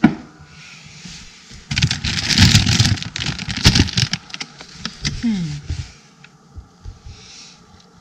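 Large plastic bag of dry cat food being grabbed and shifted on a workbench, crinkling and rustling loudly for a couple of seconds. There is a sharp knock at the start and a few more knocks among the crinkling.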